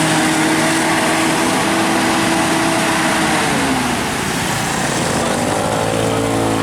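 A tour bus's multi-tone musical air horn (a 'telolet'/'basuri' horn) playing: held notes slide down in pitch about halfway through, then several horn tones sound together as a chord near the end.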